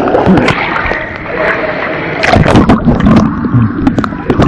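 Muffled, loud water noise picked up by a camera's microphone held under water in a swimming pool: sloshing and bubbling as swimmers move, with a cluster of sharp knocks about two seconds in.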